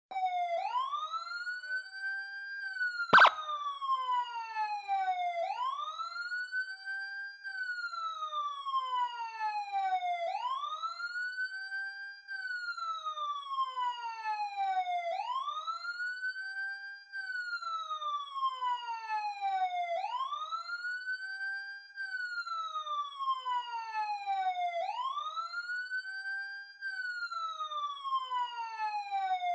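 Police siren sounding a slow wail: each cycle rises over about two seconds, holds briefly at the top, then slides down, repeating about every five seconds. A single sharp click about three seconds in is the loudest sound.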